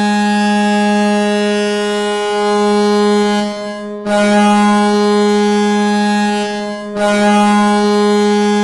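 Hockey arena goal horn sounding in long blasts, a steady low tone with many overtones. It breaks off briefly about three and a half seconds in and again near seven seconds, sounding again each time.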